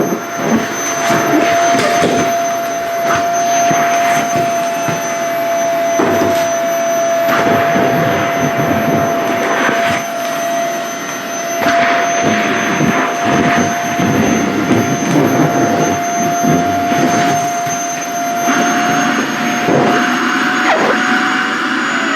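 SHARP EC-KP7F-A vacuum cleaner running with a steady high whine, its rushing airflow swelling and dipping irregularly as skirt fabric is sucked against the nozzle.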